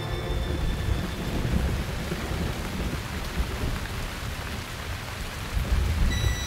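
Recorded rain and thunder: a steady hiss of heavy rain with low rumbling thunder, with no instruments playing.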